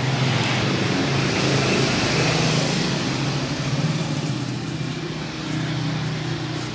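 A motor engine running steadily with a low hum and a hiss, the hiss swelling about two seconds in and easing off toward the end.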